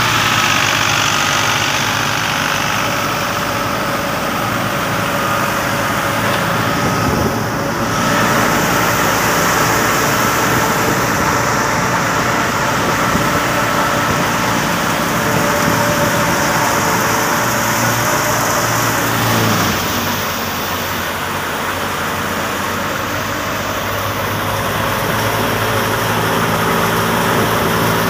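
Tractor engine running steadily while driving a reaper binder cutting wheat. The sound shifts a little about eight seconds in and drops slightly in level around twenty seconds.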